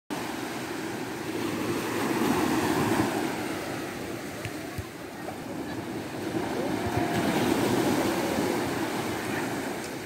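Small waves breaking and washing up a sandy beach, the surf swelling louder twice, about two seconds in and again around seven seconds.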